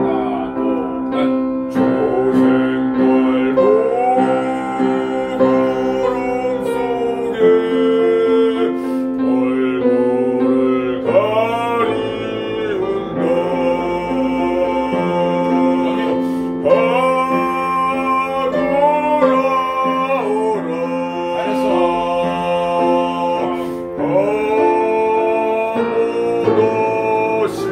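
A man singing a Korean art song in a classical, bel canto style, holding long notes with vibrato over a steady instrumental accompaniment.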